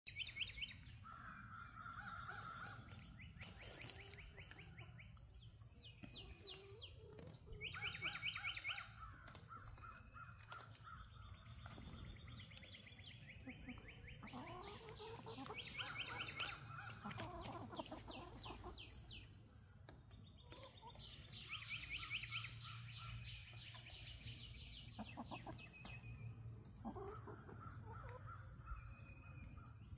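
Faint morning birdsong: several birds singing and calling at once, with fast trills, runs of repeated chirps and short whistles overlapping, over a low steady hum.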